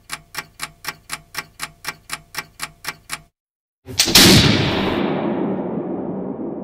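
A clock ticking steadily, about four ticks a second, which stops just past three seconds in; after a brief silence, a single loud musket shot with a long, slowly fading echo.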